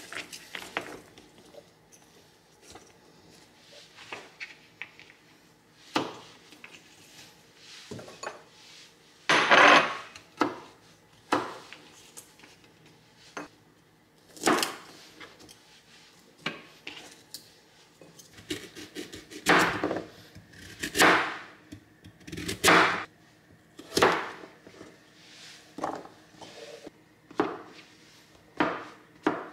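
Kitchen knife cutting asparagus and then king oyster mushroom on a cutting board: irregular knife strokes striking the board, with a few louder, longer strokes.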